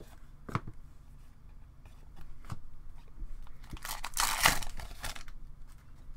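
A trading card pack wrapper being torn open: a rustling tear about four seconds in that lasts about a second. Before it come a few light taps and clicks of cards being handled.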